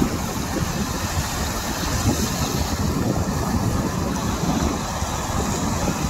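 Steady wind rumbling on the microphone over sea waves washing against rocks.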